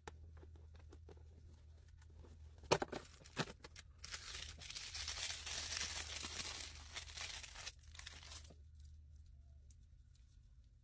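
Paper cover of a blind-box toy package's surprise compartment being torn open by hand. A few sharp taps come first, then about four seconds of continuous tearing and crinkling. A low steady hum runs underneath.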